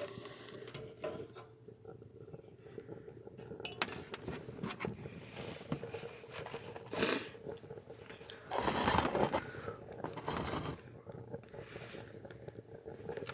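Light metallic clinks, taps and scrapes from a homemade tin-can wood stove being handled as it is lit. There is a short louder rush of noise about seven seconds in and a longer one, about a second long, near nine seconds in.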